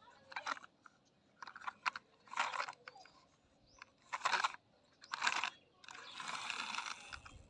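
Plastic toy truck handled by hand, its plastic wheels rolling and scraping over a tiled surface in short bursts of scraping and crunching, about six times.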